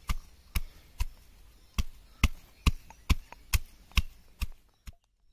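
Stone pestle pounding in a stone mortar, sharp knocks about two a second, stopping just before the end.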